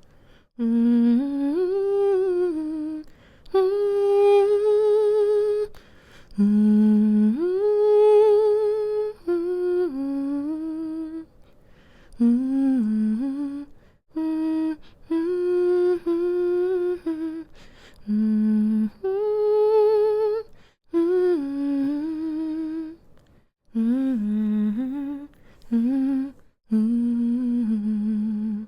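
A woman humming a slow lullaby with closed lips, in held notes that slide up and down between phrases, pausing briefly for breath every few seconds.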